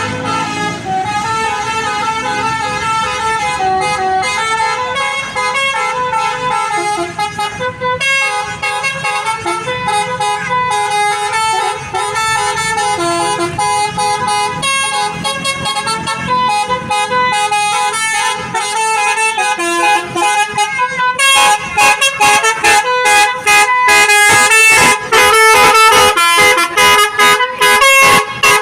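Basuri telolet horn on a Primajasa bus playing a melody of stepped, multi-tone horn notes. About two-thirds of the way through it gets louder, with a faster, choppier run of notes.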